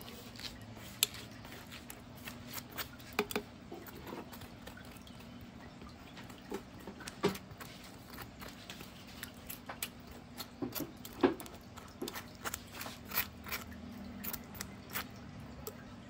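Metal spoon scraping soft avocado flesh out of the skin into a jar: soft wet scrapes with irregular small clicks and taps of the spoon.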